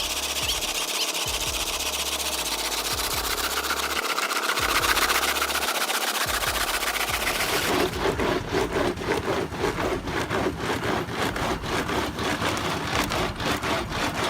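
Engine-driven machinery running steadily, changing about halfway through to a rapid, rhythmic knocking.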